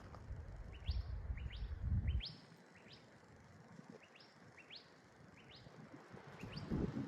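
A bird calling with short, quick upward-sweeping chirps, repeated many times. For about the first two seconds a louder low rumble of wind buffets the microphone, then drops away.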